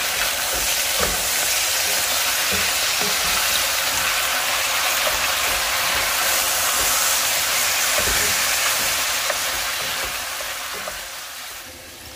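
Cubes of beef chuck sizzling in hot oil in a pot on high heat, searing and browning, with a few low knocks as the meat is stirred with a wooden spoon. The sizzle fades out near the end.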